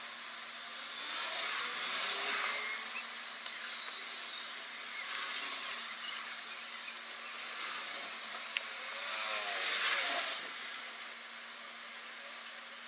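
A fine steel pick and pointed tweezers working the tiny spring contacts of a multi-pin connector, with one sharp small click about two-thirds of the way through. Under it, a broad hiss swells and fades several times over a steady low hum.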